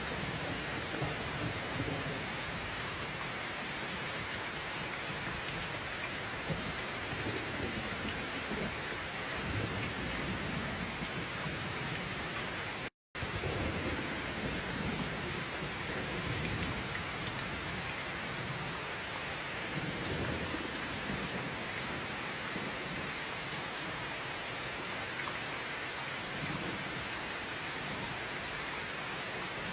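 Steady heavy rain with low rolling rumbles of thunder swelling and fading underneath. The sound cuts out completely for a split second about 13 seconds in.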